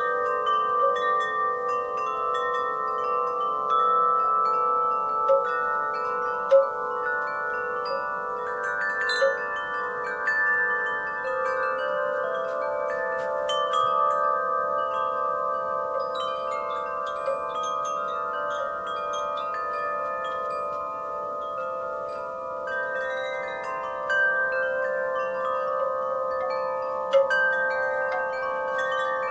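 Wind chimes struck by the breeze, tubes ringing out in many overlapping sustained tones with light, irregular strikes throughout.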